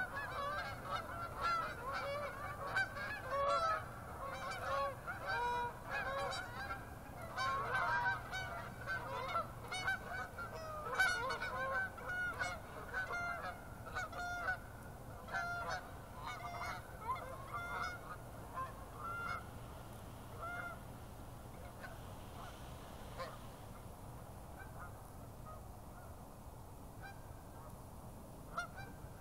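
A flock of Canada geese honking as they fly in to roost, many overlapping honks at first, thinning out after about twenty seconds to a few scattered calls, with one last honk near the end.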